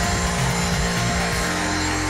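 Background music, with the steady motor whine and airflow of a Dyson V6 Car + Boat cordless handheld vacuum running under it. The music's low notes change to held tones about a second and a half in.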